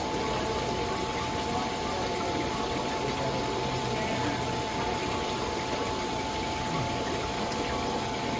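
Steady rushing splash of a water fountain, even and unbroken, with a faint steady hum beneath it.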